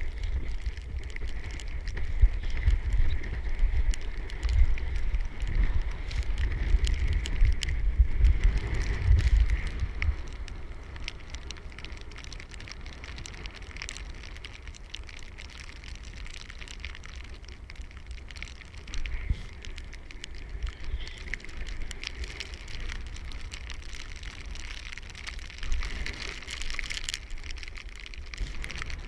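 Wind buffeting the microphone as a gusty low rumble that dies down after about ten seconds, over steady crackling and crunching.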